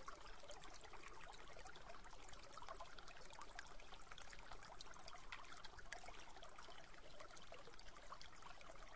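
Faint, steady trickling water, full of small splashing ticks.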